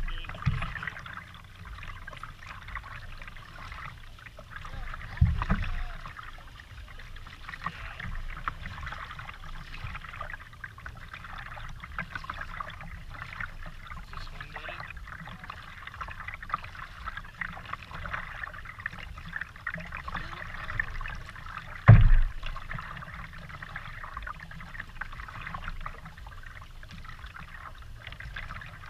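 Kayak being paddled: water splashing and trickling off the double-bladed paddle with each stroke and lapping at the plastic hull. Two sudden dull thumps break in, one about five seconds in and a louder one about 22 seconds in.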